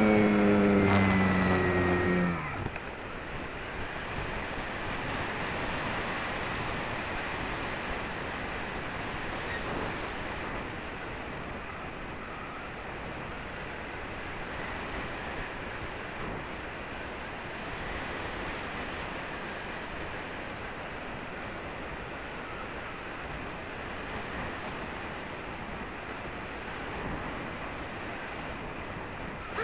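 HobbyKing Walrus glider's electric motor and propeller whining at a steady pitch, then cutting off about two seconds in. After that there is a steady rush of airflow over the wing-mounted keychain camera's microphone as the glider glides with the motor off.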